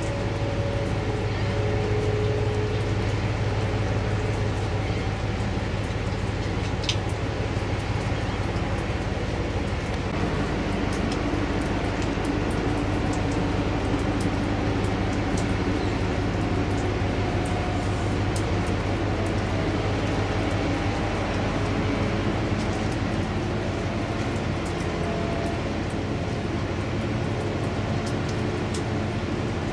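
Steady low engine drone of a large container ship's diesel moving slowly upriver, with faint tones that shift slightly over time.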